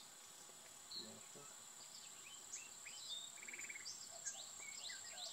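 Faint, scattered short bird chirps and calls over a steady, high-pitched insect drone, with a brief rapid trill about three and a half seconds in.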